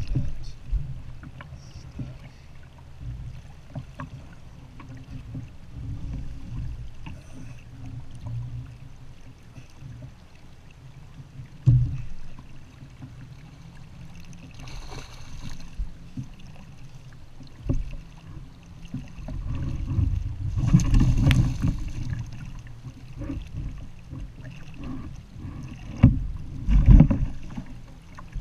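Water moving against a fishing kayak's hull, with wind on the camera microphone giving a low rumble, and a few sharp knocks from gear against the kayak. A louder rush of noise swells up about two-thirds of the way through.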